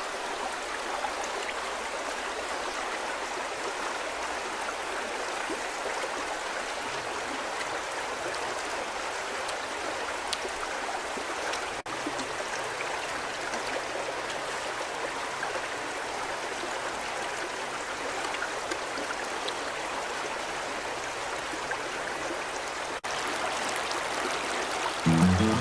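Shallow river running over rocks: a steady rush of flowing water. Music comes in at the very end.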